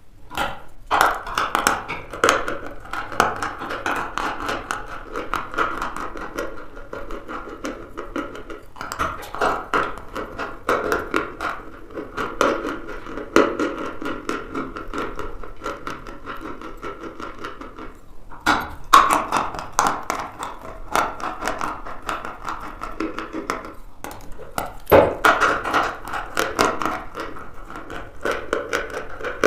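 Chalk being bitten and chewed close to the mouth: dry, crackly crunching. Fresh bites come about a second in, near 9 s, near 19 s and near 25 s, each followed by a stretch of chewing crunches.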